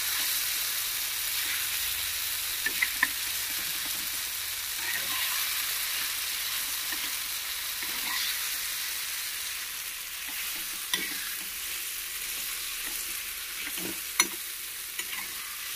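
Spiced eggplant bharit sizzling in oil in a frying pan as a flat spatula stirs and scrapes it. There are a few sharp clicks of the spatula against the pan.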